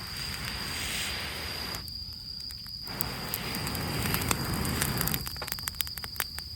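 Campfire of rain-soaked twigs and leaves catching: two long stretches of rushing flame noise, then a run of sharp crackles and pops near the end.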